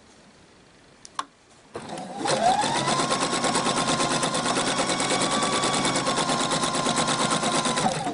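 Electric sewing machine starting just under two seconds in and running a straight stitch at a steady speed: its motor whine rises and holds over a rapid, even needle ticking, then eases off right at the end. A short click comes about a second before it starts.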